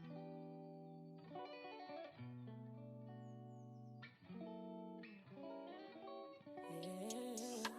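Background music: a soft plucked electric guitar playing held notes, with drums and a fuller mix joining near the end.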